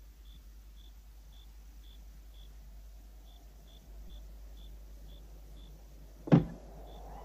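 Crickets chirping steadily, about two chirps a second. About six seconds in there is a single sharp knock, the loudest sound here.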